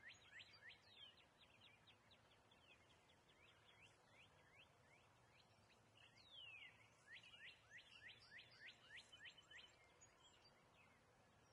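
Faint songbird song: three runs of quick, down-slurred high whistles, about five a second, with short pauses between the runs.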